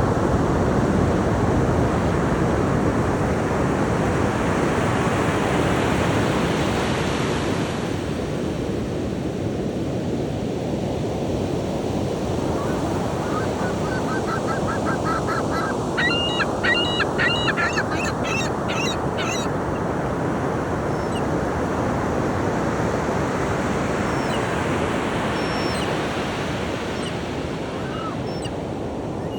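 Surf washing on a beach, swelling and easing. About halfway through a seagull calls a long run of repeated sharp notes, quick and faint at first, then louder and higher for a few seconds before stopping.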